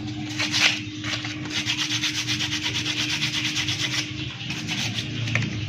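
Rapid back-and-forth scraping or rubbing, several strokes a second, as of a metal part being worked by hand. Under it runs a steady low hum that stops about four seconds in.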